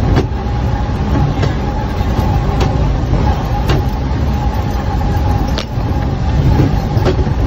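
Vehicle heard from inside the cab as it drives slowly over a rough, rocky dirt road: a steady low engine rumble with a constant whine, broken by short sharp knocks and rattles about once a second as it jolts over stones.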